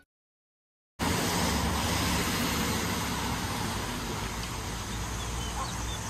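After a second of silence, steady street noise of road traffic sets in, with a few faint bird chirps.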